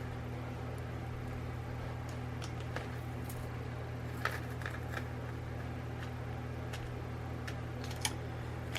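A steady low hum, with a few faint clicks and rustles as small plastic packets of beads are handled.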